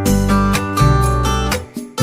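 Background music: a strummed guitar with a steady rhythm and a strong bass line.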